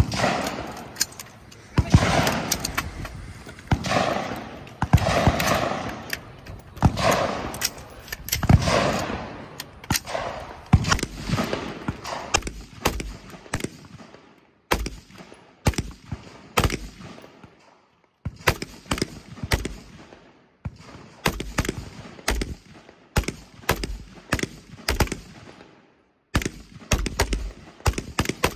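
Gunfire on a shooting stage: a long string of shots. In the first half they come about one a second, each echoing away. In the second half they come quicker and shorter, in clusters with brief pauses.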